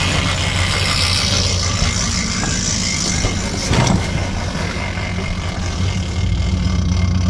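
Bass boat's outboard motor running at low speed, with a single thump a little under four seconds in and the engine note growing louder near the end as throttle is given, while the boat is still held by the trailer's winch strap.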